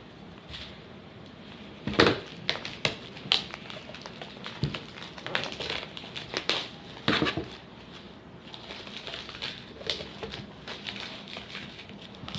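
Food packaging being handled and opened: crinkling plastic with a run of sharp clicks and knocks, the loudest about two seconds in and another cluster about seven seconds in.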